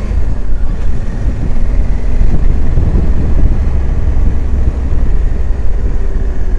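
Motorcycle under way on an open road: a steady low rumble of wind on the microphone mixed with the engine and tyre noise, with faint steady engine tones above it.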